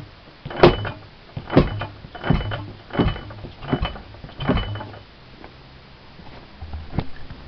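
Delf marine engine firing unevenly: six sharp, loud bangs at a slow, slightly uneven beat of about one every 0.7 seconds, then dying away after about five seconds, with one fainter knock near the end. The owner puts the poor running down to wrong ignition point timing on the new magneto, so that it does not fire when the piston is meant to.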